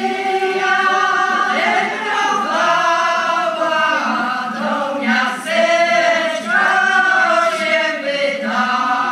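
Women's Polish folk singing group singing a carol unaccompanied, in long held phrases with short breaths between them.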